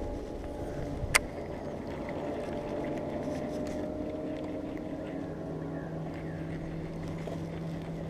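Outboard motor of a bass boat idling steadily, with one sharp click about a second in.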